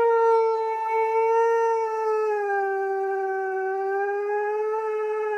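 A husky howling in one long unbroken call that holds nearly level and sags slightly in pitch. It is a protest at being told to get out of the bathtub.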